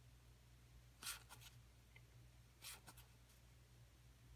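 Printed game cards being flipped through by hand, a card sliding off the front of the deck with a soft swish twice, over a faint low hum.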